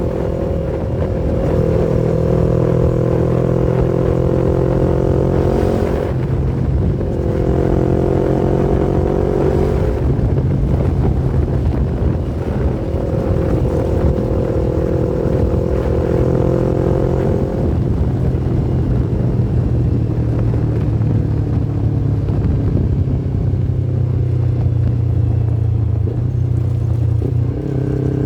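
Yamaha MT-25's 249 cc parallel-twin engine running under way. Its pitch climbs slowly, then breaks off and drops back several times. It holds a steadier, lower note for a stretch before rising again near the end.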